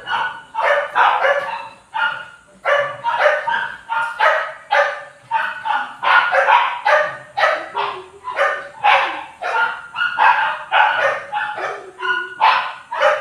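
A dog barking over and over, about two to three barks a second, without letting up.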